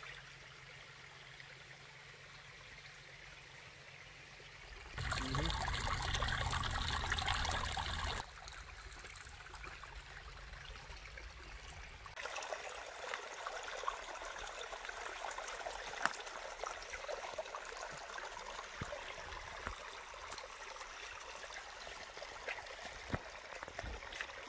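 Small, shallow creek trickling over rocks, a steady water noise that changes level at a few cuts. About five seconds in it turns much louder and fuller for roughly three seconds.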